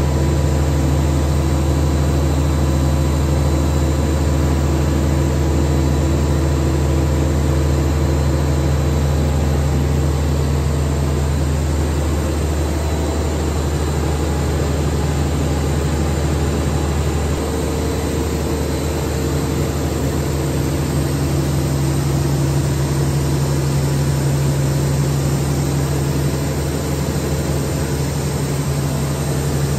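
Plastic pipe extrusion line running: a loud, steady machine hum with a strong low drone and a faint high-pitched whine above it. The tone shifts slightly about halfway through.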